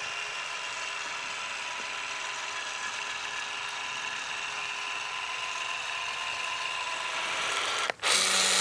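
Battery-powered caulk gun motor running steadily with a thin whine as it pushes urethane windshield sealant out of the tube in a continuous bead. About eight seconds in, the sound cuts to a louder, steadier hum.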